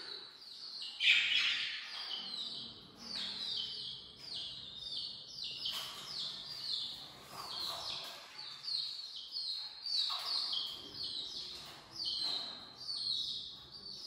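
Budgerigar chattering: a steady run of short, high chirps that fall in pitch, several a second, with a louder burst about a second in.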